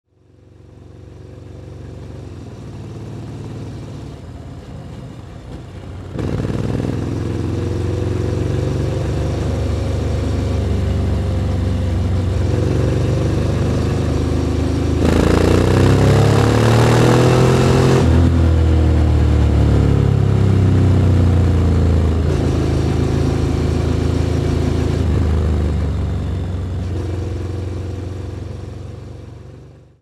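Honda NC750X's parallel-twin engine running under way, its note rising in pitch as it accelerates hard about halfway through, the loudest part, with rushing noise, then falling away. The sound fades in at the start and out at the end, with a few abrupt changes where shots are joined.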